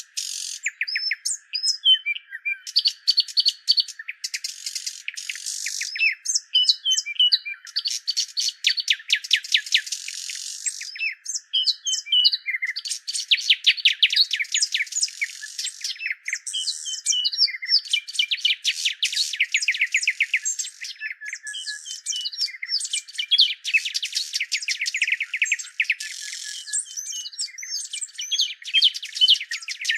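Birds chirping: rapid runs of short, high chirps mixed with curling whistled notes, with little pause throughout. The recording has no low end, so it sounds thin and bright.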